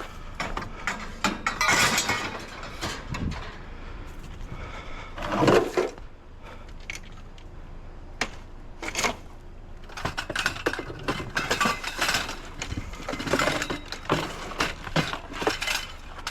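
Metal scrap being handled, clanking and rattling in a run of short knocks and clatters, with one louder knock about five and a half seconds in.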